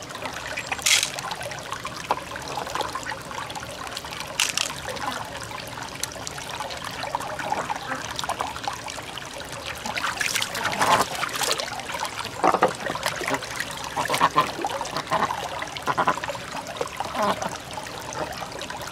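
Water trickling steadily at a pond's edge, with hands handling opened freshwater mussel shells and beads on wet rock: a couple of sharp clicks in the first few seconds, then a run of short knocks and wet scrapes from about ten seconds in.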